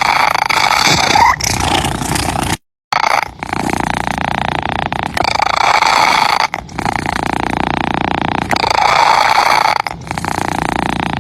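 Domestic cat purring close to the microphone, a continuous rough rumble that swells and fades every few seconds with its breathing. The sound cuts out completely for a moment about two and a half seconds in.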